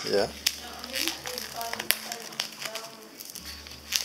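Plastic cling film over a meat tray crinkling and crackling as a gloved hand presses and handles it, with a few sharp clicks.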